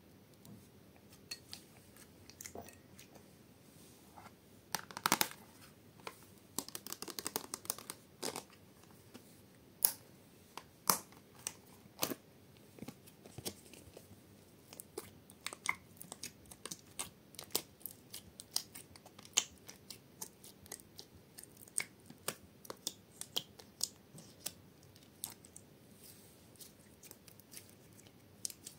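Close-miked slime handled by fingers: a string of sharp little clicks and crackly pops. The crackling bunches up and is loudest about five to eight seconds in.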